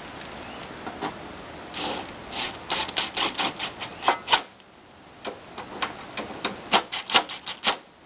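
Cordless drill driving screws into the sheet-metal top plate of an A-frame evaporator coil: a run of sharp clicks and taps, about four or five a second, in two bursts with a short pause in the middle.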